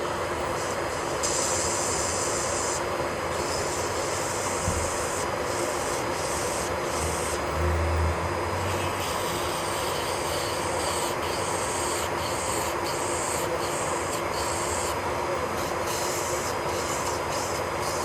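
Electric nail drill running steadily while its bit sands the nail surface, the gritty higher sound coming and going as the bit touches and lifts. A brief low bump comes near the middle.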